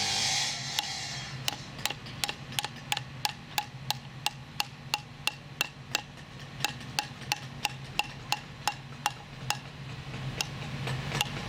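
Sharp, ringing taps repeating about three times a second, with a brief pause near the end, over a low steady hum.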